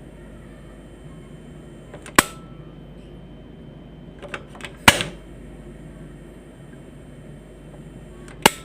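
Quantum gas stove knob being switched on and off. About two seconds in, a click cuts off a faint high hiss of gas. Around five seconds in come a couple of light clicks and then a sharp ignition snap, and the hiss returns. Near the end, another click shuts it off again.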